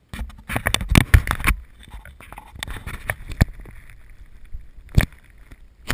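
Handling noise from the plane-mounted GoPro as the FPV plane is picked up off the grass: a quick run of knocks and rubbing in the first second and a half, then single sharp knocks every second or so.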